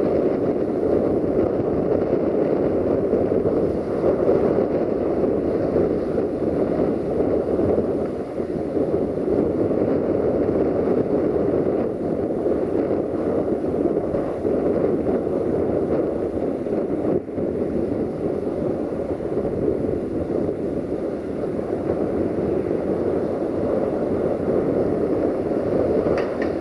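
A train rolling past, a steady rumble of wheels on rails without a break.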